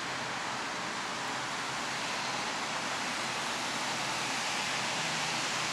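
Airbus A320 jet engines at takeoff thrust heard from a distance as a steady rushing noise, growing slightly louder as the airliner lifts off and climbs.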